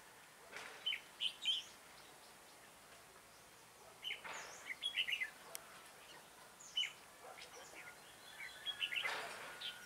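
Red-whiskered bulbuls singing in short, quick chirpy phrases, in three bouts a few seconds apart, the typical exchange of a bulbul song duel at a decoy trap.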